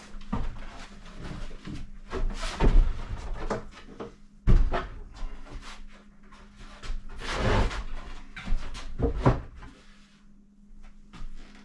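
Wooden cabinet parts being dry-fitted together by hand: irregular knocks, thumps and scraping of wood on wood, with the sharpest knock about four and a half seconds in.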